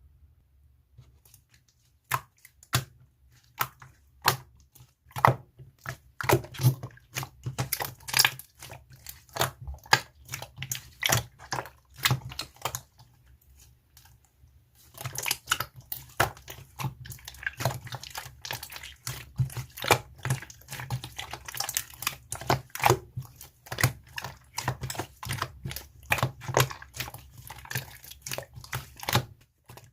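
Elmer's glue slime being squeezed and pressed by hand, giving a run of sharp clicks and pops as air pockets burst. It starts after about two seconds and pauses briefly about halfway through.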